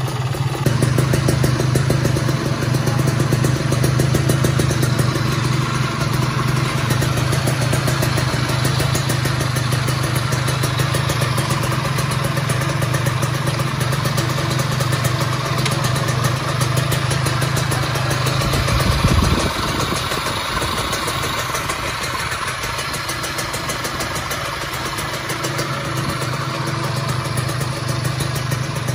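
Freshly rebuilt Kawasaki Ninja 150 two-stroke single-cylinder engine running steadily at idle on its first start-up after assembly, with one brief surge about two-thirds of the way through.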